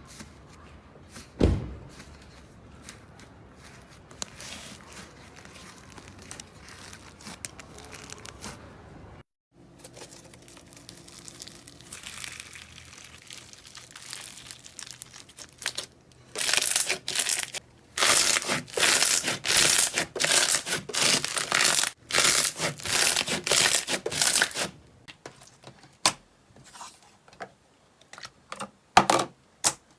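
Slime being squeezed and pressed, making crackly, crinkly squishing and crunching sounds. These are faint at first, then come in a run of loud repeated squeezes, about two a second, through the middle and later part, with a few sharp clicks near the end.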